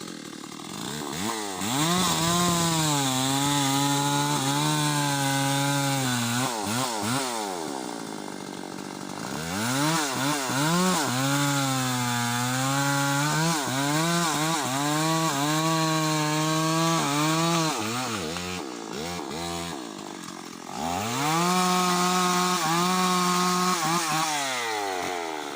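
Stihl chainsaw revved to full throttle and held there three times, cutting into teak wood, dropping back toward idle between cuts with a short blip of throttle between the second and third runs.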